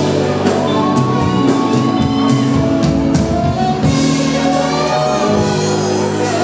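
Live band playing a slow pop song: drum kit and electric bass under a held lead melody line that slides between notes.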